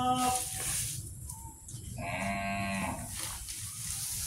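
Two short, steady-pitched animal calls, like lowing: one trailing off just at the start and a second, slightly lower one about two seconds in, each under a second long. A brief breathy hiss comes between them.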